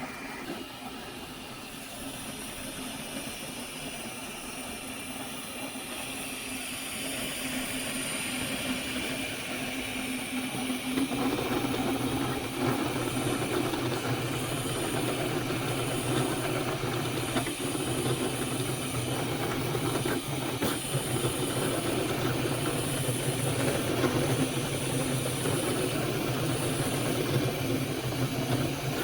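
Flashforge Adventurer 5M 3D printer running mid-print: steady hum and hiss of its fans with the whir of its stepper motors, plus an on-and-off high whine. It grows louder about a third of the way in.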